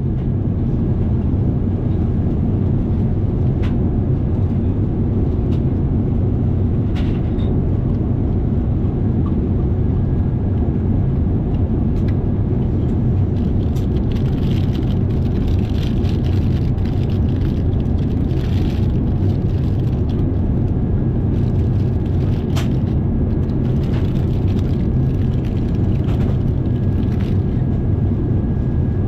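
Steady low rumble of a Boeing 787-8 Dreamliner heard from inside the passenger cabin, with a few faint ticks over it.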